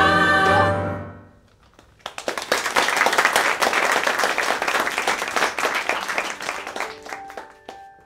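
A held final musical chord ends in the first second. Then an audience applauds for about five seconds, dying away near the end as a few soft sustained notes begin.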